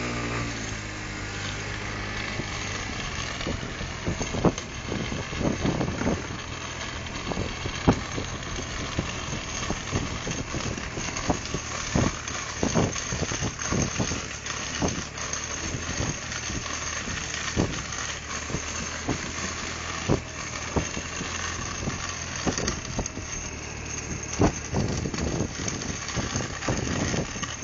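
Kick scooter rolling fast down an asphalt road: a steady rushing rumble of small hard wheels, broken by frequent irregular clacks and knocks as the deck and wheels hit bumps and cracks.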